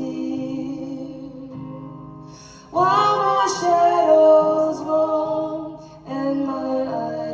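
Two women singing a slow song in close harmony over acoustic guitar. A held note fades away, then a new sung phrase comes in loudly about three seconds in, and another just after six seconds.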